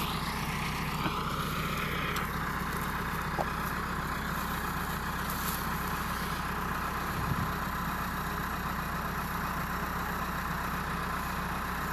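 Massey Ferguson 385 tractor's diesel engine idling steadily.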